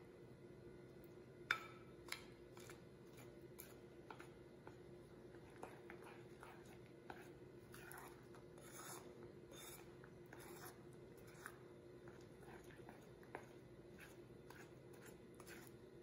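A spoon stirring thick pecan praline candy mixture in a glass bowl, with soft scrapes and light clicks against the glass as the mixture is worked until it thickens. One sharper clink with a short ring comes about a second and a half in, over a faint steady hum.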